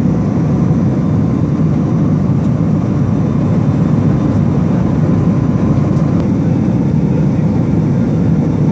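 Steady drone of a fixed-wing aircraft's engines, heard from inside the cabin.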